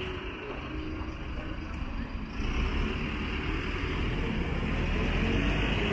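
City street traffic: the engine and tyre noise of a motor vehicle, growing louder about two seconds in as it comes close and stays loud.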